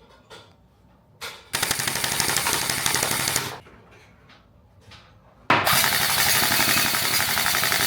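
Electric gel blaster firing on full auto as rapid, closely spaced shots. A brief burst comes first, then a burst of about two seconds, then after a pause a longer burst that is still going at the end.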